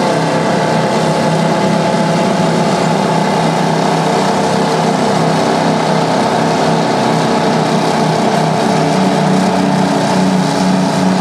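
Several Detroit Diesel engines, those of two bulldozers and a twin-engine Terex TS24 scraper, running hard together under load during a tandem push-load. The sound is a loud, steady, dense engine drone.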